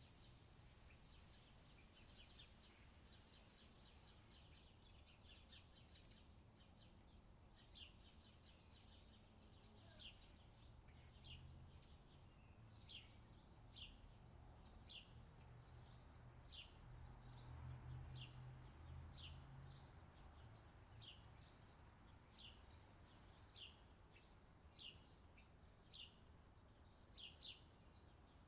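A small songbird calling: a series of short, high, falling chirps, roughly one a second, with fainter quick chirping near the start. Under it runs a faint low hum that grows a little louder midway.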